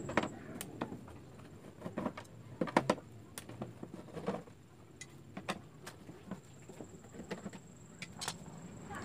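Irregular small clicks and metallic clinks of screws and a screwdriver being worked on an LED TV's plastic back cover as the screws are taken out, loudest a little under three seconds in.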